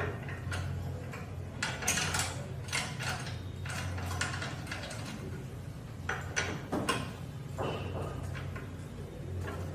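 Spanner working the two bolts of a metal cut-off saw's steel vise fence, with irregular metallic clicks, scrapes and knocks as the fence is moved to a new cutting angle and tightened. A low steady hum runs underneath.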